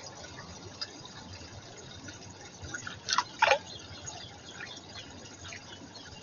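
Faint water sounds and small ticks at a garden pond, with two loud, quick sounds a little after three seconds in, each falling sharply in pitch.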